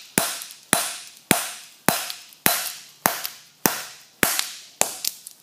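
A soft-faced mallet striking a lathe compound slide casting in a steady rhythm, about two blows a second, nine in all, each with a short ringing decay, then a few lighter quick taps near the end. The blows are trying to knock a fitted part out of the casting.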